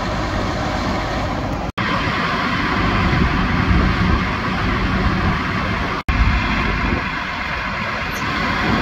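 Heavy diesel trucks running at idle, a steady low rumble with a broad hiss over it. The sound cuts out for an instant twice, at splices in the recording.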